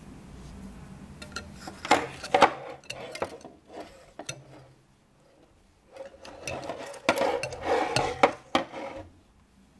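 Handling noise from a small racing quadcopter being picked up, turned over and set down on a wooden workbench: plastic and frame parts knocking and rubbing on the bench and under the fingers. A cluster of sharp knocks comes about two seconds in, and a second stretch of rubbing and clicks runs from about six to nine seconds.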